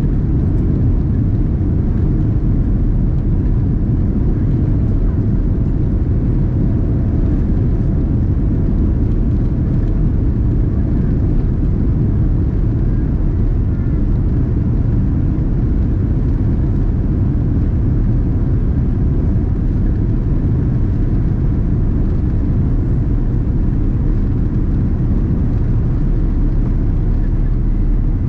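Cabin noise inside a Boeing 787-10 during the takeoff roll: the GEnx-1B turbofans at takeoff thrust and the aircraft rolling down the runway make a steady, heavy low rumble.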